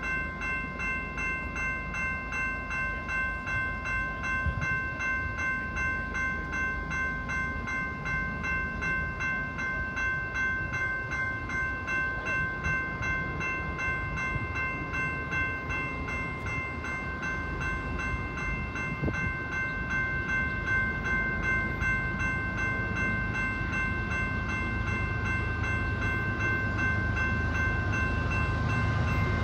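Railroad grade-crossing bell ringing steadily in an even, repeating ding as a BNSF freight train approaches. The train's low rumble grows louder toward the end.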